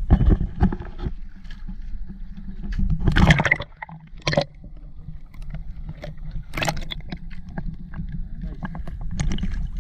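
Sea water sloshing and gurgling over an action camera's microphone as the camera dips in and out of the waves, with several sudden splashes and a steady low rumble underneath.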